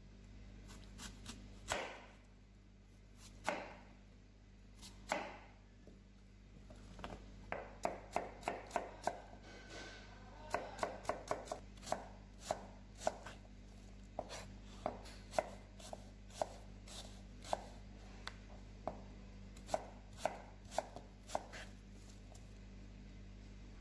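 Chef's knife cutting a peeled green apple on a cutting board: a few separate slicing strokes at first, then quick, steady chopping at a few cuts a second from about seven seconds in, stopping shortly before the end.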